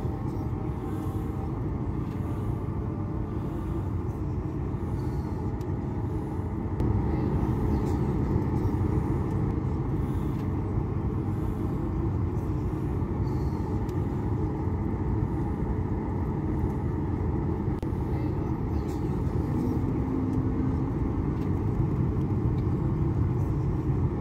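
Jet airliner cabin noise during the takeoff roll: a steady low rumble of the engines and the wheels on the runway. It gets louder about seven seconds in.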